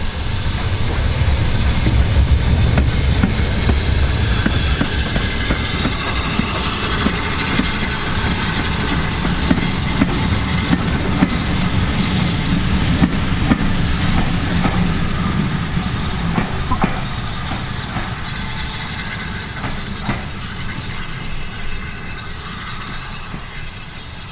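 A steam-hauled train running past on the heritage line: a heavy rumble of wheels on rails with repeated clicks over the rail joints. It is loudest about two seconds in, then slowly fades as it moves away.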